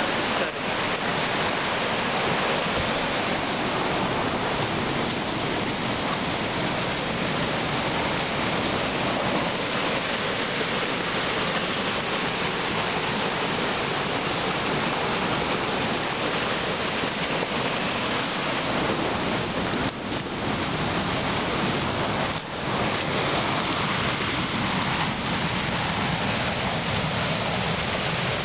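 Floodwater rushing down a concrete dam spillway and churning through white-water rapids below: a steady, even rush of water, with the dam running high in flood.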